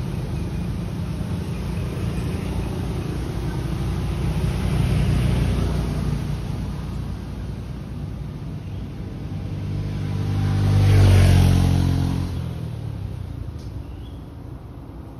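Engine of a passing motor vehicle running, with a low hum that swells twice and is loudest about eleven seconds in before fading away.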